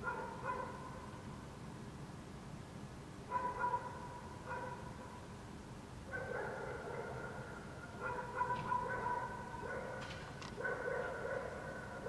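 Dogs barking in repeated bouts, a few barks in quick succession each time, with the bouts coming closer together and running longer in the second half.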